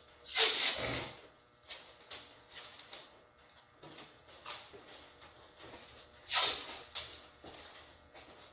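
Tape being pulled off a roll in rasping strips and wound around an exhaust pipe, the loudest pulls about half a second in and about six seconds in, with smaller ones between.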